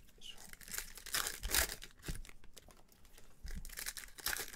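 Foil wrappers of trading card packs crinkling and tearing as gloved hands handle and open them, in irregular rustling bursts.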